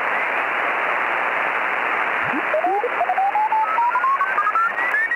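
Shortwave radio receiver hiss with whistles gliding up in pitch, the sound of the dial being tuned across signals; the strongest whistle climbs from low to high over the last three seconds.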